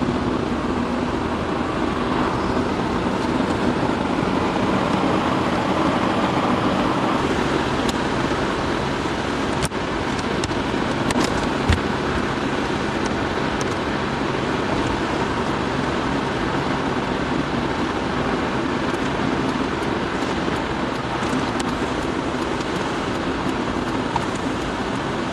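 Steady car running noise, engine hum and tyres on the road, heard from inside the cabin while driving at a constant pace. A few faint clicks come about ten seconds in.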